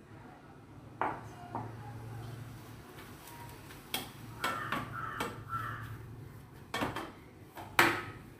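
Stainless steel plate knocking and clattering on a stone counter as dough is kneaded on it by hand, a string of irregular knocks, some with a brief metallic ring, the loudest near the end.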